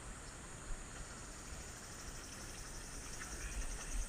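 Faint insect chorus shrilling in a steady high pulsing drone, stronger from about halfway through, over a low rumble of wind on the microphone.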